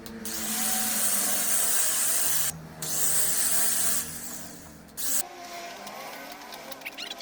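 A handheld power tool working wood: two long runs of loud hissing cutting noise, the first about two seconds and the second about one, then a brief touch about five seconds in.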